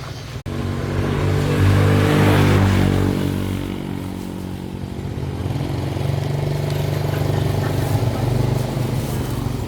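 A motor vehicle's engine running at a steady pitch. It comes in abruptly about half a second in and is loudest for a couple of seconds after that.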